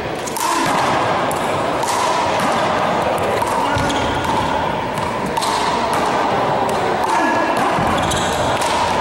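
One-wall handball rally: the small rubber ball is struck by hand and smacks off the wall and the wooden gym floor, sharp hits coming every second or so, over a steady background din.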